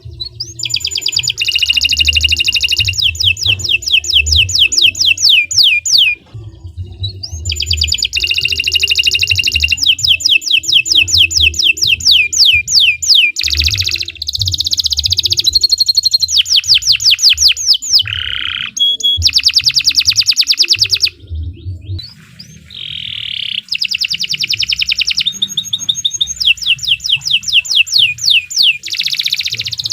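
Domestic canary singing long phrases of fast trills and rolls, rapid repeated notes in high pitch, broken by brief pauses. A low rumble runs underneath.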